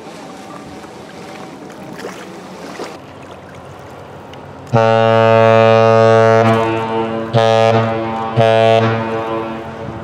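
A Great Lakes freighter's deep ship's horn sounds one long blast and then two short blasts, echoing after each. This is the long-and-two-short pattern of the Great Lakes master's salute.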